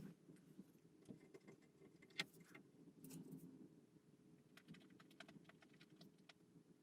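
Near silence with scattered faint, light clicks and taps from small plastic model parts being handled, the loudest a little past two seconds in.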